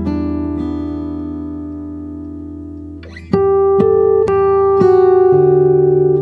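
Background music: a held chord fades out over about three seconds, then a louder new phrase of notes comes in.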